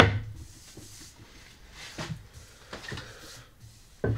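A sharp wooden knock as the Japanese hand plane is set on the board, then a few faint soft brushing strokes of a hand over the freshly planed wood surface, and another knock near the end.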